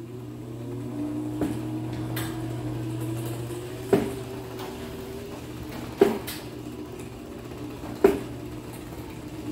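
Linear LDCO850 chain-drive garage door opener running as it raises the door: a steady motor hum and whine, with a sharp knock about every two seconds. The chain might be a little too loose.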